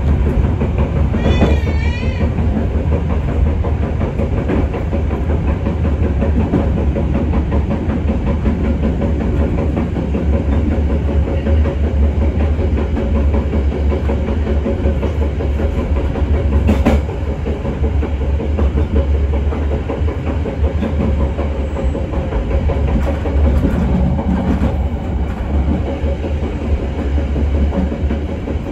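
Passenger train running along the track: a steady, loud rumble of steel wheels on rail with clickety-clack over the joints. A brief warbling tone sounds about two seconds in, and a single sharp click comes past the middle.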